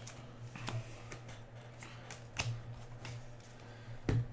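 2017-18 Upper Deck Series 1 hockey cards being handled and flipped through one by one, with a few sharp flicks and slaps, the loudest near the end. A steady low hum runs underneath.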